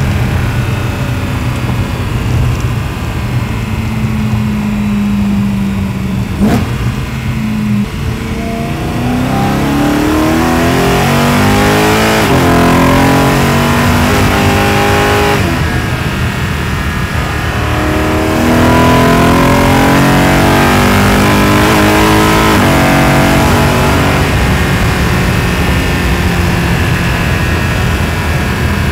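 Catless, straight-piped BMW E92 M3's 4.0 L S65 V8, heard at its exhaust and intake plenum. It cruises steadily, then pulls hard with the revs climbing through the gears, dropping at two upshifts. Near the end it lifts off and settles back to a steady drone.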